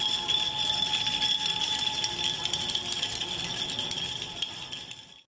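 Jingle bells shaken steadily in a dense jingling, with a held high ringing note, fading out near the end.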